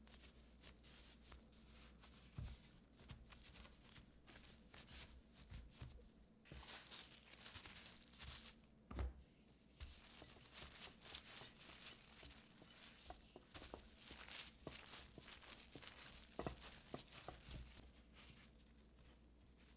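Quiet rustling and scraping with a few soft knocks, as of hands working with dough, wrap or utensils at a kitchen counter.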